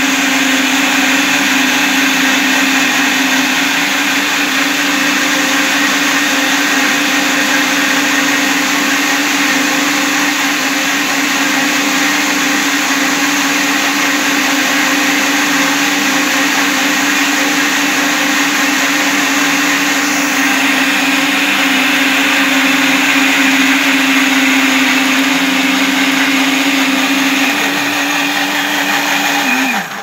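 Three household blenders (Arno Power Mix Plus, Philips Walita and Mondial Turbo Power) running at once, blending carrot chunks with acerola juice: a loud, steady motor whine with the churn of the blades. Near the end the motors are switched off and spin down with a falling pitch.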